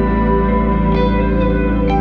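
Background music with long sustained chords and a few new notes coming in.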